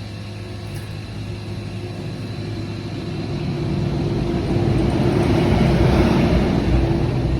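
A passing motor vehicle: engine and road noise that swells to its loudest about six seconds in, then eases, over a steady low hum.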